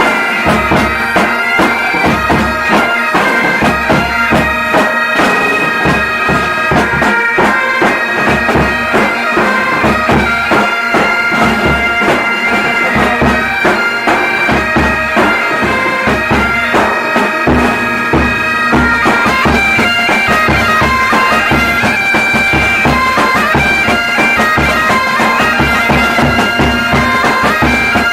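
Military pipe band playing a Garhwali mangal geet folk tune on bagpipes. The melody runs over the pipes' steady drone, with drums beating a regular rhythm underneath.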